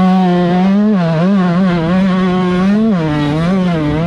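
125 cc two-stroke motocross bike engine running at high revs under race throttle. Its pitch wavers and dips briefly about a second in, then drops to a lower steady pitch about three seconds in.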